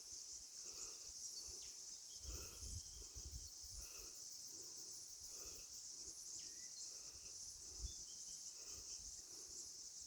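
Faint, steady high-pitched chirring of insects in eucalypt bushland, with a few short, faint bird chirps and low thumps beneath.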